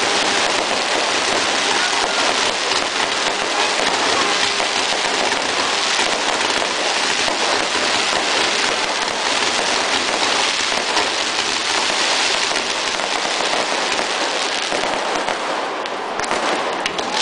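Fireworks crackling densely and steadily overhead, a continuous crackle with no single big bang standing out, briefly thinning near the end.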